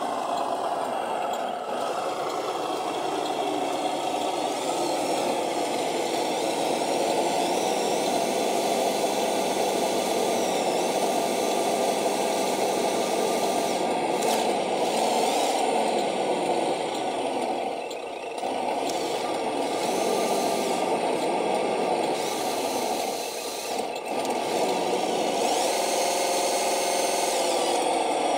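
Radio-controlled Scania truck's motor and drivetrain running as it crawls through mud under load, a steady whir whose pitch falls at the start and rises again near the end, with two brief drops in level in the second half.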